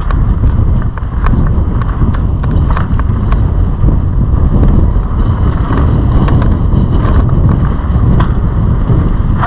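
Wind rushing over the microphone of a riding mountain biker's camera, a steady low rumble, with the bike's tyres running over a dirt trail and frequent sharp clicks and rattles from the bike over the bumps.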